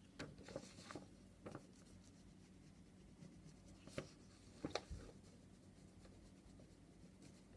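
Glue stick rubbed along the paper side flaps of an envelope: faint scraping with a few soft clicks and paper taps. They come in a cluster near the start and again about four to five seconds in.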